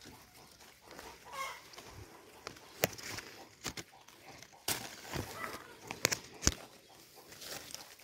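Several sharp clicks and snaps from a hand working through a citrus tree's branches and leaves to take hold of a fruit, the loudest about three and six seconds in. Between them come a few faint short calls from an animal.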